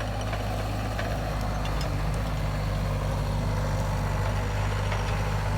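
Bobcat skid steer's diesel engine running steadily at an even, low idle-like pitch with no revving.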